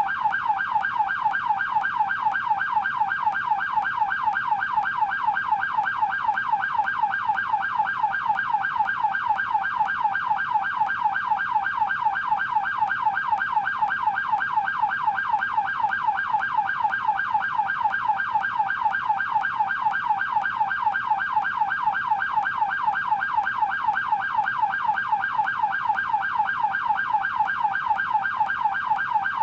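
Canadian police car siren on its yelp setting: a fast, evenly repeating rising-and-falling wail that runs on without a break.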